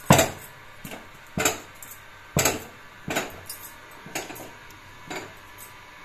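Wooden spatula knocking against a steel kadai as thick, stiff moong-flour dough is stirred and pressed while it cooks: six sharp knocks about a second apart, the first the loudest.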